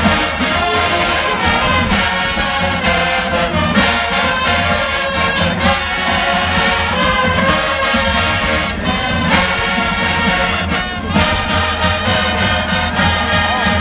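Marching band playing at full volume, brass section of trumpets and trombones over drums with a steady beat.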